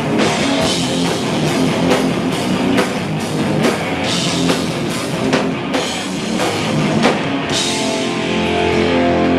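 Live hardcore punk band playing: distorted electric guitars and bass over fast, hard-hit drums. About eight seconds in the drumming drops away and held guitar notes ring on.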